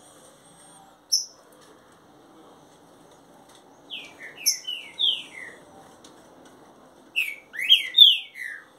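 A young green-winged saltator (trinca-ferro), about a month old, singing: two short phrases of slurred, downward-gliding whistled notes, one about four seconds in and one near the end, with a brief high chirp about a second in.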